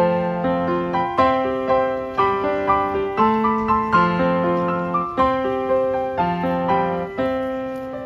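Background piano music: a slow, gentle melody of single notes over soft chords, each note struck and then dying away.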